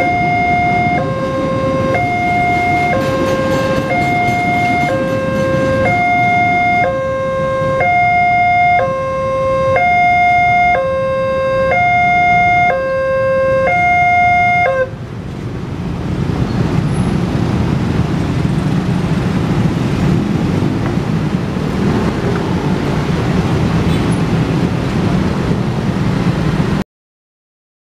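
Indonesian level-crossing electronic alarm sounding a two-tone warning, switching between a lower and a higher tone about once a second, over the low noise of a passing tank-wagon train. The alarm cuts off suddenly about 15 seconds in, leaving the steady noise of motorcycle traffic crossing the tracks.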